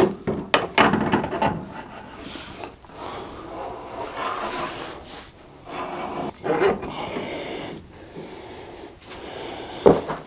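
Scooter front fork being slid up into the steering head: metal scraping and rubbing against the frame and greased headset bearings, with a few clicks at the start and one sharp knock near the end.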